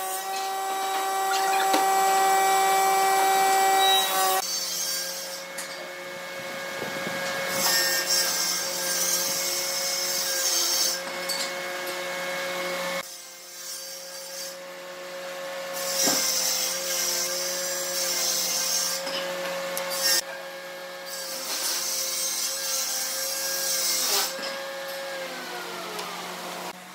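A steady motor hum runs under bursts of scratchy rubbing on wood: a pencil tracing around a wooden template on bare boards. The hum's pitch falls near the end.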